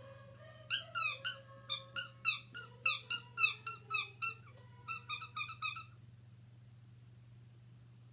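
A guinea pig wheeking: a run of about twenty sharp, high squeaks, three or four a second, with a short break about four and a half seconds in, stopping about six seconds in.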